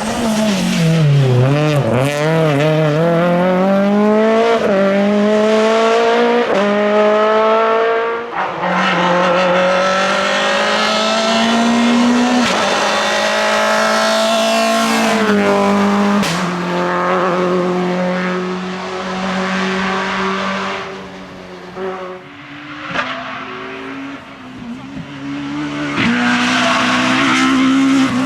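Naturally aspirated Groupe F2000 rally car engine at full throttle, revs climbing hard and dropping at each quick upshift, several gears in a row. Well past halfway it eases off and goes quieter at lower revs for a few seconds, then pulls hard and high again near the end.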